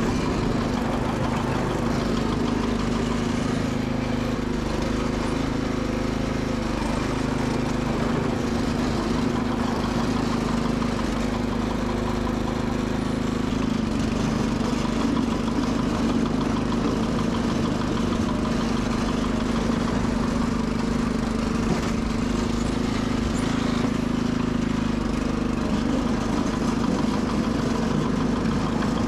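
Sears Suburban SS12 garden tractor's engine running at a steady speed.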